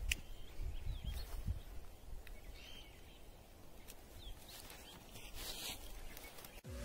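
Quiet outdoor ambience: low wind rumble on the microphone and a few faint bird chirps. A single sharp click near the start as a lighter is struck to set dry pine needles alight.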